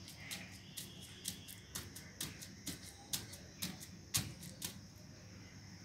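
Bare feet landing on a woven plastic floor mat as a child jumps in place, a sharp slap about twice a second, about ten times, stopping near the end.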